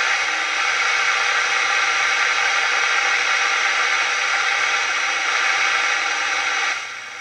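Steady loud hiss from a regenerative airband receiver's loudspeaker, tuned to an aviation frequency with no transmission on it. The hiss drops sharply near the end.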